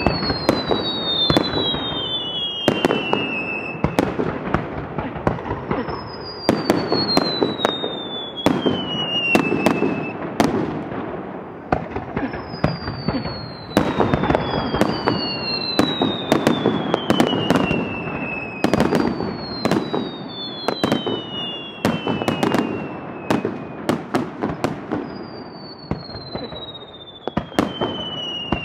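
Fireworks going off: a rapid, irregular series of sharp bangs and crackles from bursting shells, over and over. Through it run repeated whistles, each falling in pitch over two or three seconds.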